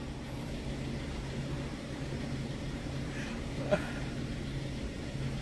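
Shop room tone: a steady low hum with a faint hiss, and one brief faint sound a little past the middle.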